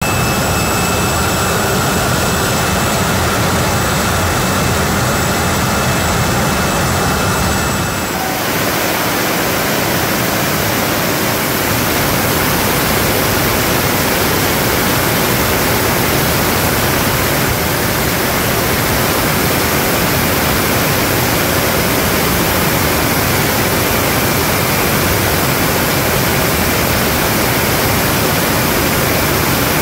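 DASS GNX turbo-ramjet engine running steadily on a test stand: loud jet noise with a high turbine whine of several steady tones. About eight seconds in the whine drops out, leaving a broad, even rush of exhaust noise.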